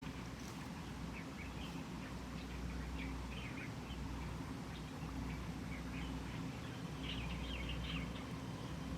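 Small birds chirping in short high notes, thickest near the end, over a steady low rumble.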